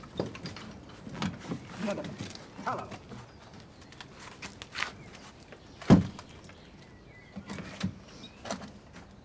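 Wooden planks knocked and scraped as they are handled and laid onto a wooden box, with one sharp wooden knock about six seconds in.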